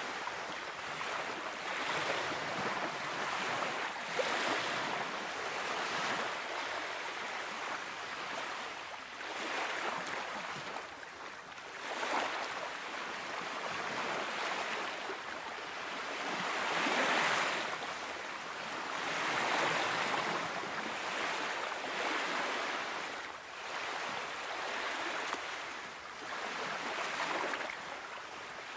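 Small sea waves washing and lapping, a soft hiss that swells and fades every two to three seconds.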